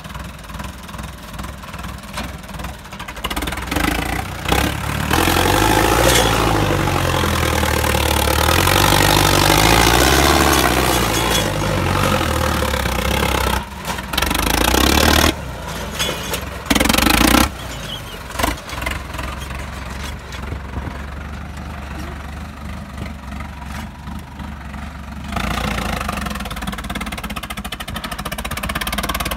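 Diesel tractor engine running hard as the tractor spins in tight circles on loose field soil, revving up and down several times in the middle stretch, with a few abrupt breaks in the sound.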